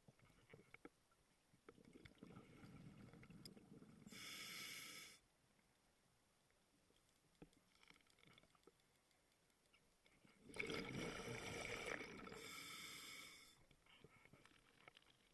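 Scuba diver breathing through a regulator underwater, faint, two breaths. Each breath is a rush of exhaled bubbles followed by a hissing inhale of about a second. The second exhale, about ten seconds in, is the loudest.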